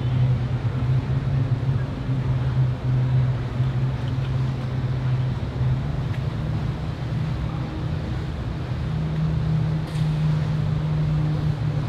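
Twin outboard motors idling with a steady low hum, the pitch stepping up slightly about nine seconds in.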